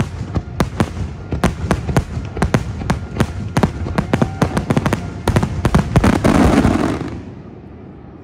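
Fireworks finale: a rapid volley of sharp bangs from bursting shells, building to a dense final barrage about six seconds in, then fading away.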